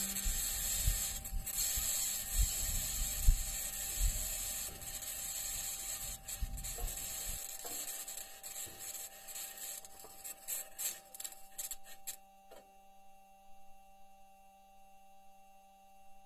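NASA recording of the Perseverance Mars rover driving: scratchy, grinding wheel-on-rock noise with scattered clicks and clanks. A low rumbling runs through the first half, and the whole fades away toward the end.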